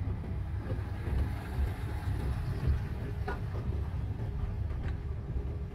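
Steady low rumble of a manual-gearbox Daihatsu car's engine and tyres, heard from inside the cabin while the car creeps slowly along in low gear.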